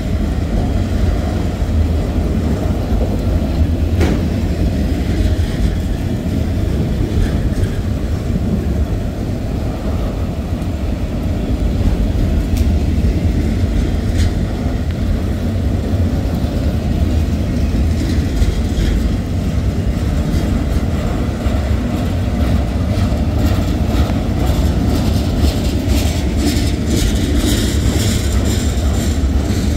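Freight train of autorack cars rolling past close by: a steady low rumble of steel wheels on the rails, with scattered clicks and clanks, which come thicker in the last few seconds.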